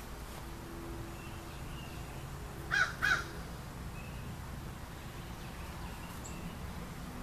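Two short, harsh caws from a crow in quick succession, about three seconds in.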